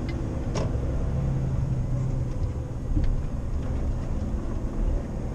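Truck on the move, heard from inside the cab: a steady low engine and road rumble, with a few light clicks.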